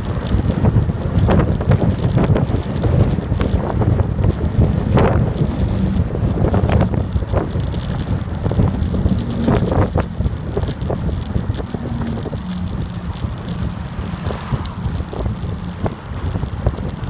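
Wind buffeting the microphone and road noise from a moving bicycle. Three short, high-pitched brake squeals come through it: one about half a second in, a brief one near six seconds, and one around nine to ten seconds.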